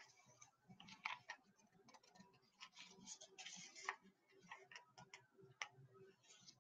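Near silence: room tone with faint, scattered small clicks and a few brief soft rustles, such as light handling at a desk.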